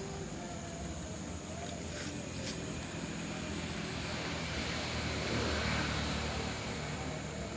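Motor vehicle passing on a nearby road: a steady engine hum and tyre noise that swells to its loudest about two-thirds of the way through, then eases off.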